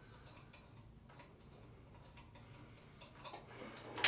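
Faint, scattered small metallic clicks and ticks of a bolt and nut being threaded by hand to fasten a support stand to a generator's steel frame, with a few louder ticks near the end.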